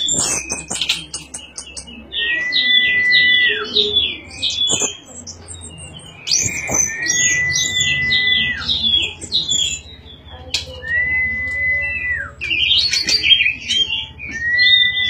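Orange-headed thrush (anis merah) singing in its 'teler' trance while being stroked by hand. It repeats one phrase about every four and a half seconds: a long level whistle that drops at the end, then a run of quick, high chattering notes. A few short knocks are heard between phrases.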